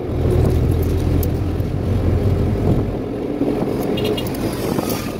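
Engine of the passenger vehicle being ridden in, running as it drives along, heard from inside: a steady low drone that eases slightly about three seconds in.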